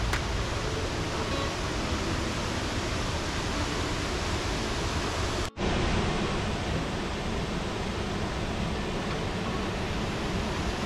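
Running Eagle Falls pouring out of a cave opening in the cliff into a pool, a steady rush of falling water. The sound drops out for an instant about halfway through.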